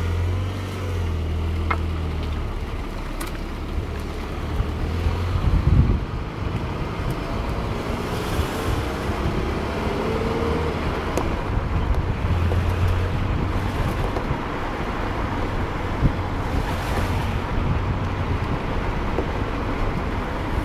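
A 2002 Ford Fiesta 1.4 Zetec being driven: a steady low engine hum under tyre and road noise, with wind on the microphone. A faint whine rises and falls briefly about nine seconds in.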